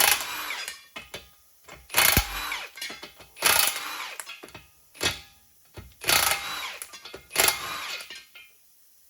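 Impact wrench run on the bolts of a two-piece Humvee wheel in five short bursts, each starting sharply and winding its pitch up and down, with short pauses between.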